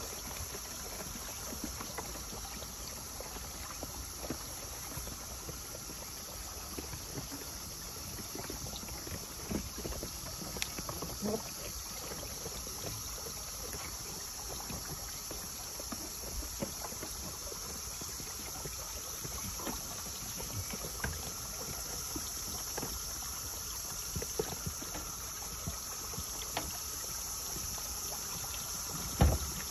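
Steady high-pitched insect drone, with soft rustling as a cloth is rubbed over a donkey's ears and a few small knocks. A thump comes near the end.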